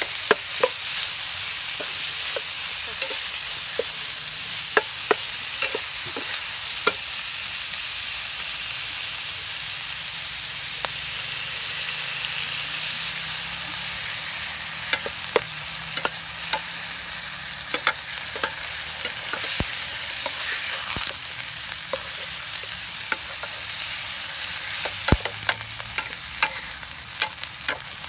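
Freshwater eel pieces frying in oil with spice paste in a nonstick pan: a steady sizzle. A metal ladle scrapes and taps against the pan while stirring, with the sharp clicks coming in spells, busiest in the first few seconds and again near the end.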